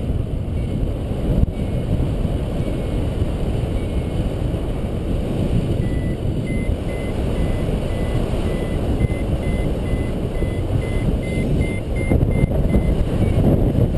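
Wind rushing over the camera microphone during a paraglider flight, with a variometer beeping. From about six seconds in, short high beeps come about twice a second, rising slightly in pitch and quickening, the vario's sign of the glider climbing in lift.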